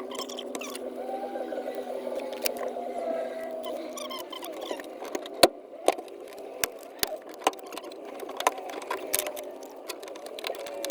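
Metal clinking and knocking while bolting in a harness bar: irregular sharp clicks, one or two a second, starting about five seconds in, over a steady background hum.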